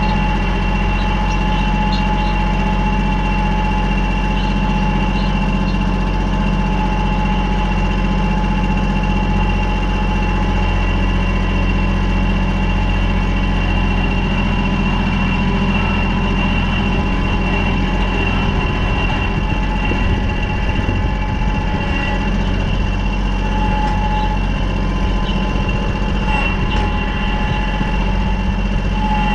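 Kubota L3800 tractor's diesel engine running steadily at a constant speed, with no revving.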